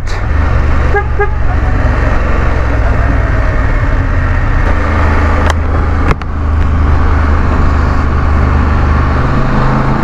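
BMW F 850 GS parallel-twin engine running steadily at town speed, heard from the bike with wind and road noise. A short horn toot comes about a second in, and there is a brief break in the drone a little after six seconds.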